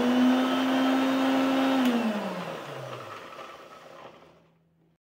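Electric mixer-grinder blending curd, sugar, cashews and almonds: a loud steady motor whine, then a click about two seconds in as it is switched off, and the motor spins down, its whine falling in pitch and fading away.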